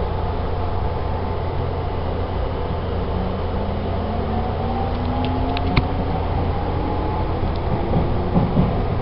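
Interior running sound of an Odakyu 2000 series electric train's motor car: the traction motors whine in several tones that slowly rise in pitch as the train gains speed, over a steady low hum and air-conditioning noise, with a few short clicks about halfway through.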